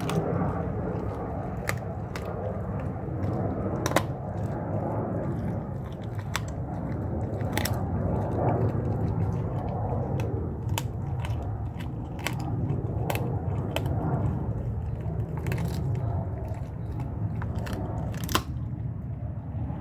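A Blue Bay Shepherd chewing a raw turkey leg: continuous wet gnawing, with sharp cracks of bone every second or two.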